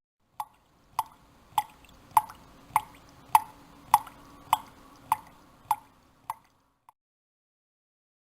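Water dripping in slow, even drops, about five every three seconds, a dozen in all before it stops.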